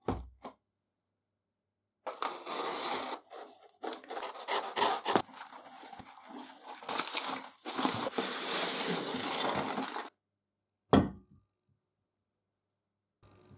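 Cardboard box being opened: packing tape ripped off and cardboard flaps pulled open, with crinkling and rustling as hands dig through foam packing peanuts, for about eight seconds. A short thump at the start and a single sharp knock about eleven seconds in, as things are set down on a wooden bench.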